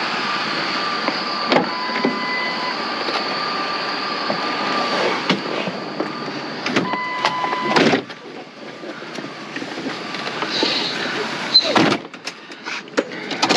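A vehicle on the move, with steady road and engine noise heard from inside the cab. The noise drops off about eight seconds in, followed by a few scattered clicks and knocks.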